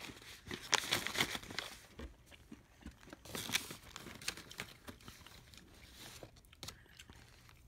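Plastic candy pouch crinkling and tearing as hands pull it open, in crackly bursts: loudest in the first two seconds, again about three and a half seconds in, then a few lighter crinkles.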